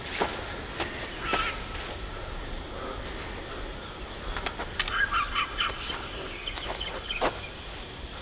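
Tropical jungle ambience: a steady high insect drone that swells at intervals, with birds calling. A bird call comes about a second in, a burst of short chirps follows near the middle, and a few sharp clicks are scattered through.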